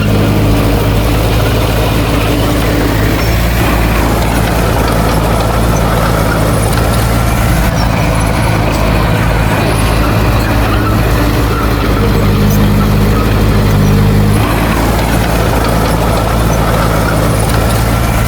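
Heavy diesel engine of earthmoving machinery running steadily at a constant speed. Its tone shifts slightly a few seconds in and again for a couple of seconds later on.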